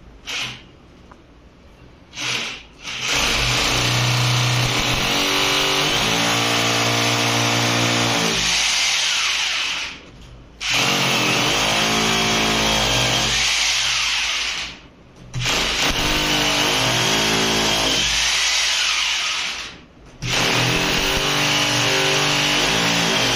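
Corded electric drill boring into a wall: two short bursts in the first few seconds, then four long runs of several seconds each with brief pauses between, the motor's pitch wavering as the bit bites.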